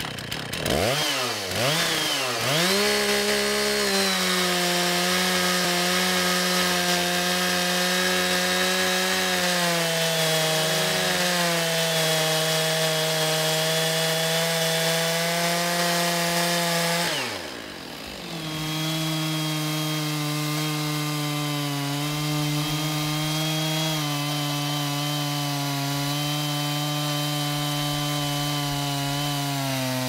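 Two-stroke chainsaw mounted in a chainsaw sawmill, ripping a log lengthwise into boards. The engine revs up and down a few times at the start, then runs steadily at high revs under load. A little over halfway through the pitch falls and the sound briefly drops, then it is back at full throttle.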